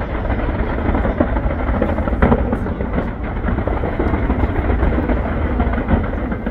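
Dense fireworks barrage: a continuous rumble of rapid booms and crackles, with one sharper bang about two seconds in.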